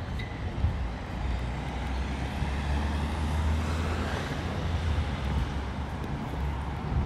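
A motor vehicle passing by on a city street: a steady low engine drone, with its road noise swelling to a peak about four seconds in and then fading.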